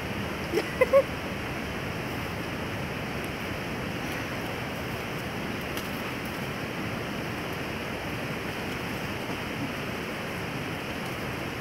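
Steady rushing outdoor noise, with three short rising cries close together about half a second to a second in.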